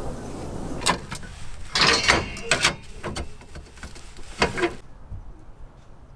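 Several short knocks and clatters, one after another over about four seconds, over a steady background noise that cuts off suddenly near the end.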